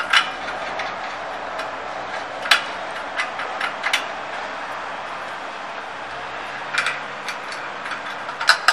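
Irregular metal clicks and light knocks, singly and in short clusters, as the steel frame parts and fittings of a chalk making machine are handled and fitted together over a steady background noise.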